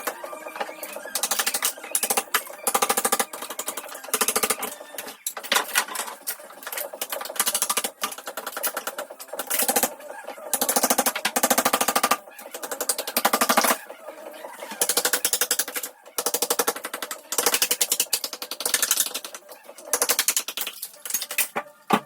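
Power tool hammering in about a dozen short bursts of roughly a second each, each burst a fast, even rattle of blows.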